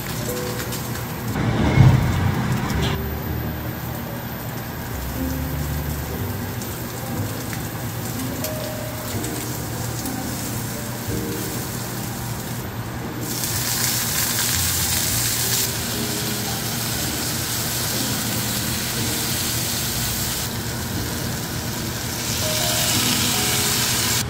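Onion, garlic and then vegetables sizzling as they stir-fry in a non-stick frying pan, with a loud burst of sizzle about two seconds in and a stronger sizzling hiss in the second half, under soft background music.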